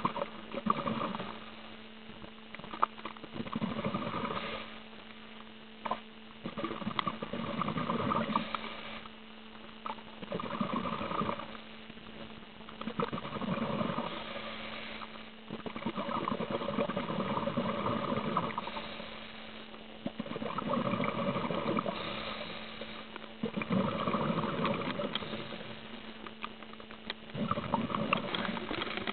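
Scuba regulator exhaust bubbles from a diver's breathing, heard underwater as a bubbling, crackling burst every three to four seconds. A steady low hum runs underneath.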